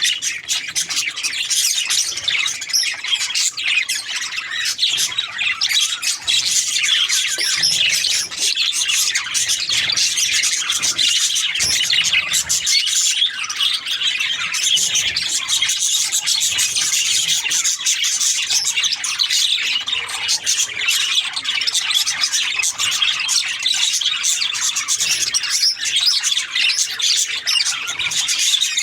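Budgerigars chirping and chattering continuously, many short high calls overlapping, as from a group of birds.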